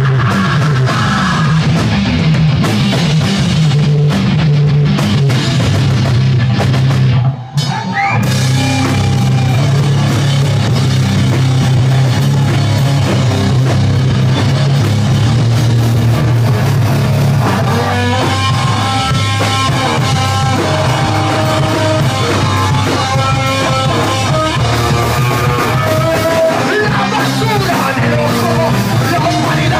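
Live rock band playing loud, with electric guitar and drum kit, and a singer on a microphone. The band breaks off for an instant about seven and a half seconds in, then comes back in.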